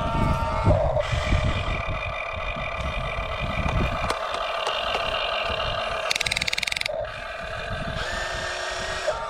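Small electric motors and gearboxes of radio-controlled construction models whining steadily at several pitches, with a short burst of rapid, even rattling about six seconds in.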